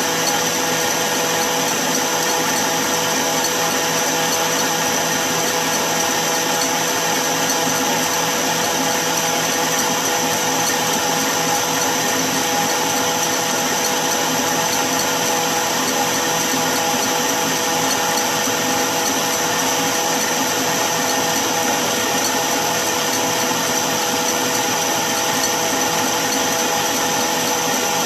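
Electric stand mixer running steadily, its wire whisk beating plain egg whites in a stainless steel bowl on the way to firm peaks for Italian meringue. It is a constant motor whine with several held tones.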